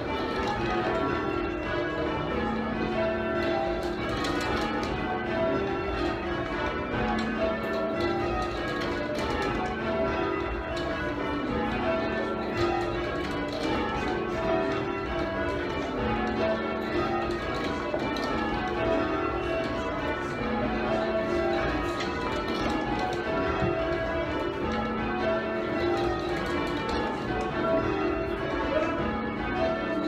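Change ringing on a ring of eight church bells cast in 1878 by John Warner and Sons, heard from the ringing chamber below them: the bells strike one after another in a steady, evenly repeating rhythm of changes.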